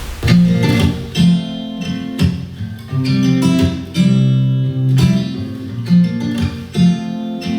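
Acoustic guitar music: strummed chords with a strong accent about once a second, the instrumental intro of a song before the vocal comes in.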